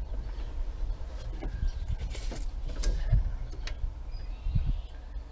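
Scattered light clicks and rubbing of metal as a tractor's brake pedal linkage adjuster is turned and handled by hand during a brake free-play adjustment, over a steady low rumble.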